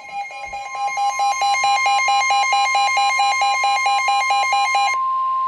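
The NOAA Weather Radio warning alarm tone, a single steady high-pitched tone that signals an urgent warning is about to be read, overlaid by a harsh warbling electronic alarm beeping about five times a second that stops about five seconds in, leaving the steady tone alone.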